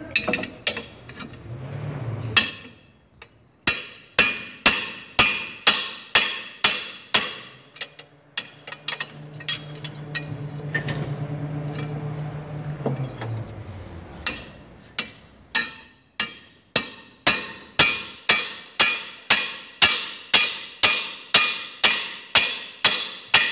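Hammer blows on a steel drift held against the back of a Suzuki APV rear axle hub and backing plate, metal on metal, knocking the drive axle shaft and its bearing out. The sharp ringing strikes come about two a second: one run early on, and a longer, steadier run through the second half. A steady low hum lasts a few seconds in the middle.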